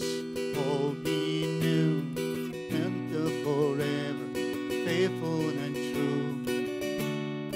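Acoustic guitar strummed in a steady rhythm, with a man's voice singing over it through the microphone.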